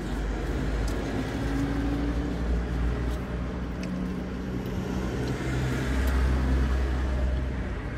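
Low, steady rumble of a car's engine and cabin noise from inside the car, with a few faint hums that shift in pitch now and then and a few small clicks.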